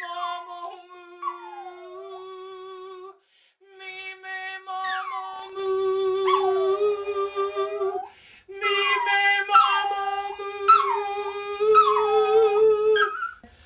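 A long-haired chihuahua howling along to a woman singing long held notes, its howls swooping down in pitch again and again over her steady tone. The singing breaks off briefly twice, and the howling grows louder partway through.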